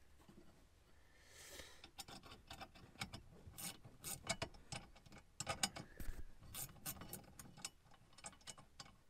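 Hand ratchet clicking in short, irregular runs while loosening the bolts that hold the rear bench seat's bracket to the floor.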